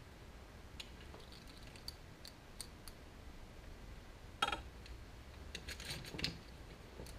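Faint clicks and rustling of harness wires being pushed by hand through a 1966 Ford Galaxie steering column. There is a louder click about four and a half seconds in and a run of small ticks near the end.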